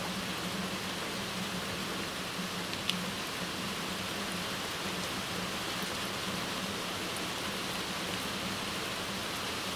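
Heavy rain falling steadily, with one sharp click about three seconds in.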